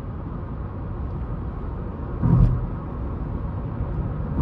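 Steady road and engine rumble inside a moving car's cabin, with a brief louder swell about two seconds in.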